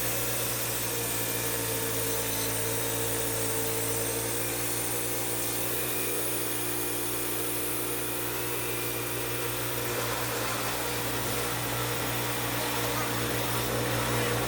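A sawmill running steadily as it mills a mesquite log into slabs: an even machine drone with a few steady tones under a wide hiss of cutting noise, shifting slightly about two-thirds of the way through.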